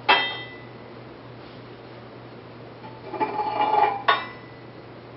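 Metal locking flange clamps clanking onto NUVALOY spiral-cast pipe ends. There is a sharp ringing clank just after the start, a scraping rattle about three seconds in as the second clamp slides onto its pipe, and another ringing clank about four seconds in.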